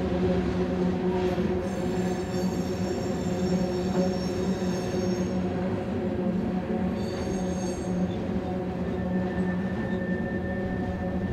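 Loaded coal hopper cars of a heavy freight train rolling slowly upgrade over a steel trestle: a steady low drone of wheels on rail, with high-pitched wheel squeals about two seconds in and again around seven seconds in.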